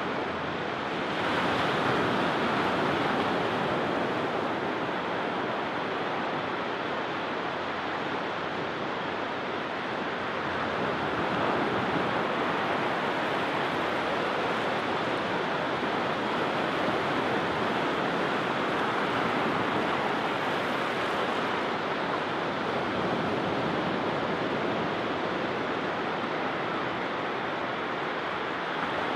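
Ocean surf washing onto a sandy beach: a steady rush of breaking waves that swells and eases slowly. It rises over the first second or two.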